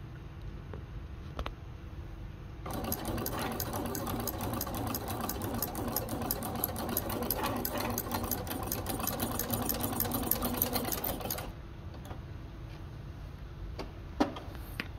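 Singer portable sewing machine with a ruffler foot fitted, running at a fast, even stitch rate for about nine seconds, each needle stroke driving the foot's pleating blade as the fabric is gathered into ruffles. It then stops, and a single sharp click follows near the end.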